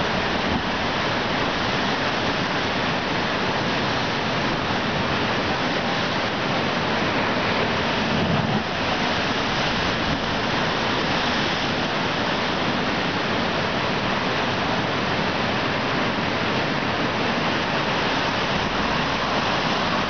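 Heavy ocean surf washing over a rock shelf and pouring into a sea hole: a steady roar of churning whitewater.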